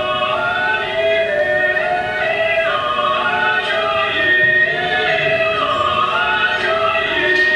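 Music: operatic singing, several voices holding long notes that step from one pitch to the next.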